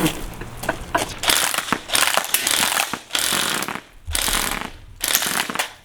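Airsoft Vulcan minigun firing full-auto: several long bursts of rapid BB fire with short breaks between them.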